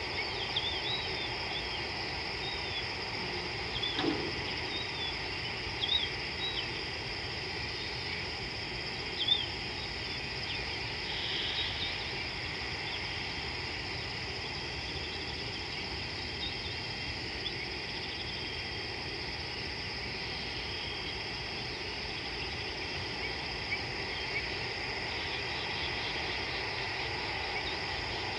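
Steady high chorus of evening insects over African bushland. A few short high chirps sound in the first ten seconds, and a brief lower falling call comes about four seconds in.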